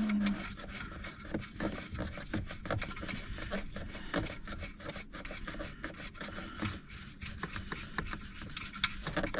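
Scraping and rubbing with dense, irregular clicks throughout: hand tools and metal parts being worked behind a car's dashboard as the heater core's retaining plate is unbolted and pulled out.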